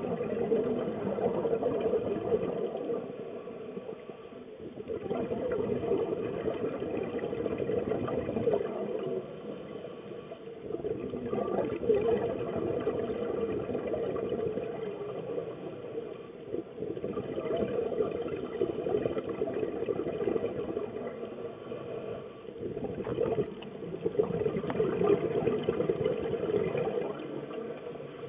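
Scuba diver breathing through a regulator underwater: exhaled air bubbles out in long bursts, with a short quieter pause for each inhale about every six seconds.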